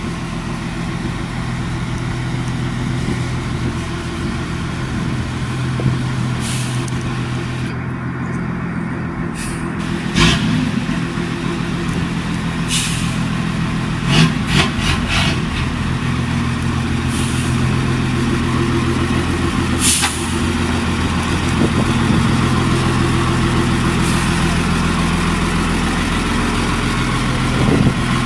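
ZiL-131 fire truck's engine running steadily at low revs as the truck moves slowly. A few short, sharp sounds come over it about ten, fourteen and twenty seconds in.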